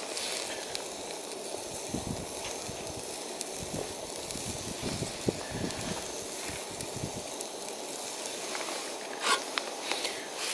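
Food frying in a small cast-iron skillet on a gas canister stove: a steady sizzling hiss, with soft knocks as pieces are cut and dropped into the pan, and a sharper knock about nine seconds in.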